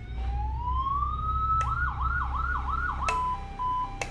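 Electronic siren from a CJB 200 W siren module through its speakers, stepped through its tones. First a slow rising wail for about a second and a half, then after a click a fast yelp of about five sweeps, then after another click a two-tone hi-lo.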